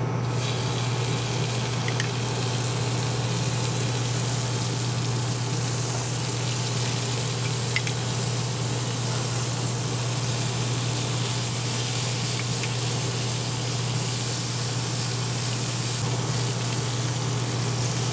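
Steady sizzling on a hot grill: a butter, orange juice and white wine sauce cooking in halved peaches on the grate, with a few faint pops over a low steady hum.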